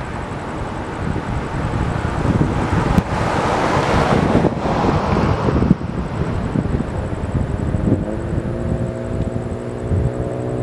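Road traffic with wind buffeting the microphone: a vehicle swells past in the first half, and from about two-thirds of the way in an engine note climbs steadily as a vehicle accelerates.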